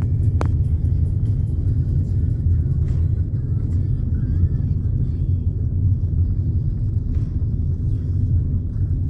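Steady low rumble of a vehicle on the move, heard from on board.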